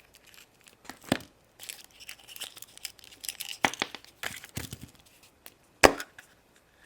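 Foil wrapper of a Kinder Surprise chocolate egg being torn and crinkled open by hand, with a few sharp snaps, the loudest near the end.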